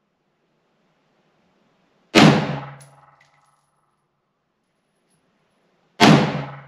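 Two .223 rifle shots about four seconds apart, each a sharp crack that dies away in under a second: the second and third shots of a three-shot group fired to zero a red dot sight.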